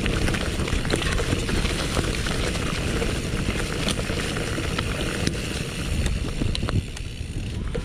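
Mountain bike rolling fast downhill on a dirt trail: tyres crunching over dirt and leaves, with rapid rattling and knocking from the bike and wind on the microphone. It gets a little quieter near the end as the trail turns to grass.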